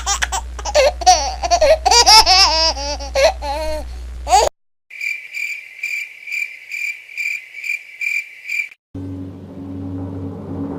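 High-pitched laughter, then after a brief silence crickets chirping steadily at about two to three chirps a second (the familiar 'awkward silence' cricket effect). A low steady rumble starts near the end.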